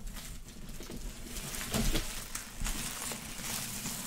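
Clear plastic shrink wrap crinkling and crackling as it is pulled and bunched off a box, a dense run of small crackles that grows busier from about a second and a half in.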